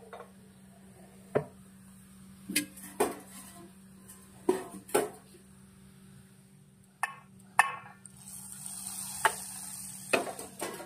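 Small steel pan and utensils knocking and clinking several times. About eight seconds in, a hot tadka of garlic, asafoetida and chili in mustard oil sizzles for about two seconds, as it is poured into dal.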